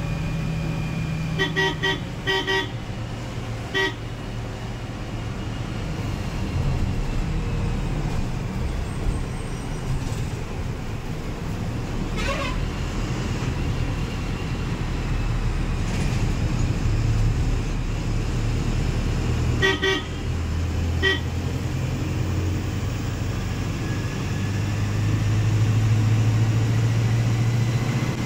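Ashok Leyland BS VI diesel bus engine droning steadily in the cabin at highway speed, louder near the end. Short horn toots cut through it: several in a cluster in the first four seconds and two more about twenty seconds in.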